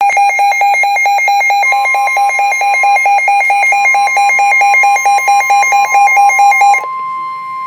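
Electronic alert alarm warbling rapidly between a low and a high tone, about five times a second, until it cuts off suddenly near the end. Under it, from about two seconds in, a steady high tone sounds and then carries on alone: the warning alert tone that opens a NOAA Weather Radio severe weather warning.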